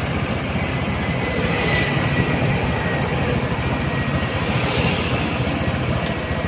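Honda Beat scooter's single-cylinder fuel-injected engine idling steadily, its loose throttle-body idle adjuster refitted; the strange injection-area noise is gone.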